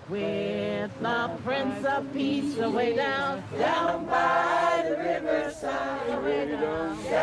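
A group of men and women singing together unaccompanied, several voices overlapping in a slow song.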